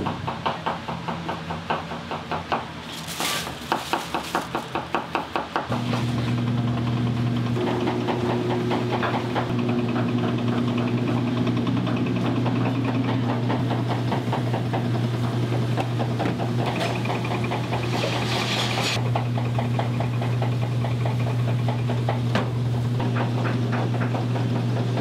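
Noodle-making machine at work: a fast, even knocking for about six seconds, then its electric motor hums steadily, with a short hiss about two-thirds of the way through.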